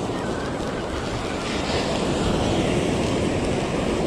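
Ocean surf washing onto the beach with wind buffeting the microphone: a steady rushing noise.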